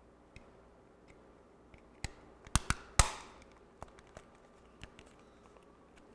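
Plastic case halves of a TV remote control being snapped back together: a quick run of sharp clicks about two to three seconds in, the loudest last, followed by a few lighter clicks.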